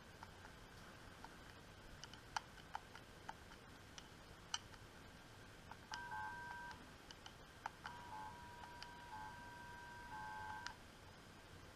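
Faint audio from a homebrew SSB transceiver's receiver tuned to 10 MHz, with scattered clicks. About halfway through, the WWV time-signal station's steady tone comes through, first briefly and then for about three seconds.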